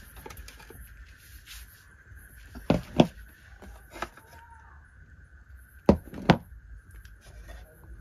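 Plastic plates being set down on a woven plastic table: two pairs of sharp knocks, about three seconds in and again about six seconds in. A faint steady high tone runs underneath.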